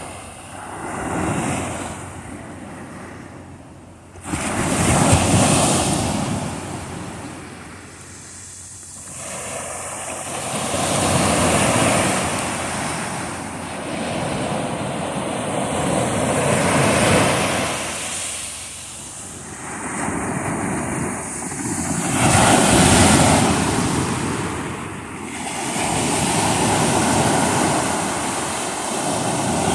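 Sea waves breaking and washing ashore, the surf swelling and falling away every few seconds.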